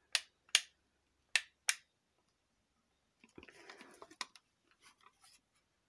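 Side push-button switch of a handheld LED camping work light clicked four times in two quick pairs as it is cycled through its settings. About three seconds in, the light is turned over in the hand: a soft rustle of handling with a few lighter clicks.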